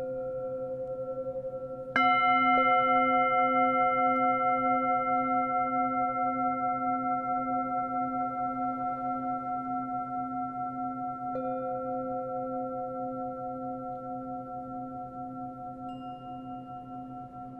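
A bell-like tone struck about two seconds in rings on and slowly fades, pulsing gently as it dies away. Faint fresh tones join it near the middle and near the end.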